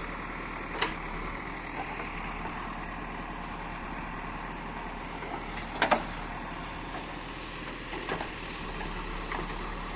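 A steady low engine drone like a truck or machine running, with a few short knocks, the loudest about six seconds in.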